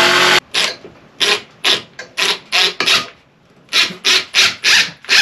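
Rhythmic scraping strokes, about two to three a second, with a short pause about three seconds in.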